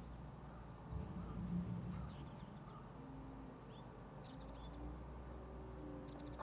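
Faint outdoor ambience: a low rumble that swells briefly about a second in, with several short, high bird chirps in the middle.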